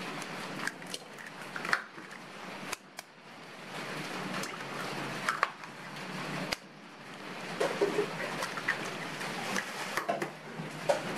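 Eggs being cracked by hand and emptied into a stainless steel mixing bowl: scattered sharp taps and clicks of shell, a few seconds apart, over a steady low hum.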